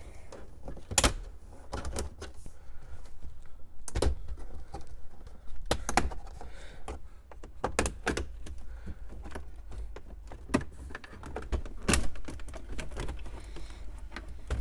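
Plastic radio dash bezel of a 2006 Mercury Mountaineer being pried loose with a plastic panel tool: an irregular run of sharp clicks and snaps as the trim clips let go, over a low steady hum.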